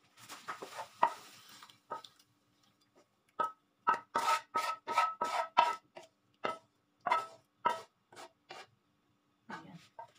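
Wooden spatula scraping out a wok, pushing sauced tofu into a bowl. A softer scrape comes first, then a run of quick, sharp scrapes, about three a second.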